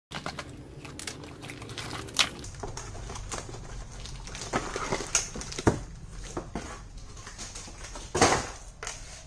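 Cardboard packaging being handled as a cardboard insert is worked out of a toy box: scattered taps, rustles and scrapes, with a louder half-second rustle near the end.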